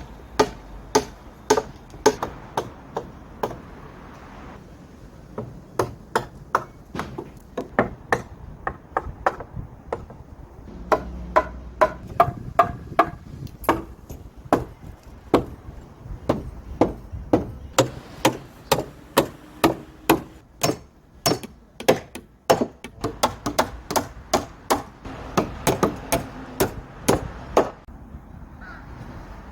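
Repeated hammer blows on wood, about two to three sharp strikes a second, in runs broken by short pauses, each with a brief ringing tone.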